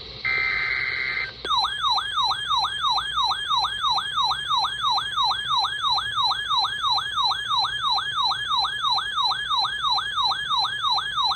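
Emergency Alert System broadcast alert: the last burst of the SAME digital header, a steady electronic screech lasting about a second. After a short gap comes a loud warbling, siren-like attention tone that sweeps up and down about three times a second.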